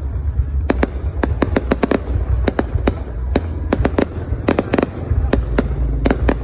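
Aerial fireworks shells bursting overhead in rapid, irregular clusters of sharp bangs and crackles, over a steady low rumble.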